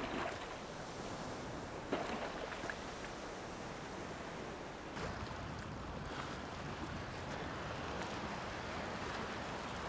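Choppy sea waves washing and lapping around a wader standing in the water, with gusts of wind on the microphone. A brief sharp noise stands out about two seconds in.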